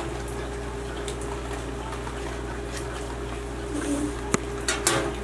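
Steady background hum with light handling noises of a metal speed square, pencil and wooden ruler on a workbench, including two sharp clicks a little past four seconds in.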